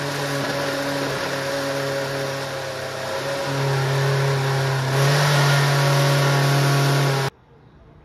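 Personal bottle-style blender running, its motor blending a smoothie in the bottle with a steady hum; it gets louder about five seconds in and cuts off suddenly near the end.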